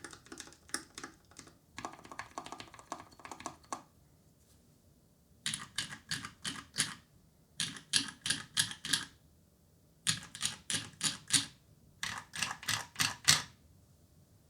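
Pizza65 mechanical keyboard with an aluminum plate and Krytox 205g0-lubed Glorious Panda tactile switches being typed on: continuous typing for the first few seconds, then a brief pause, then four quick runs of six or seven sharp keystrokes each.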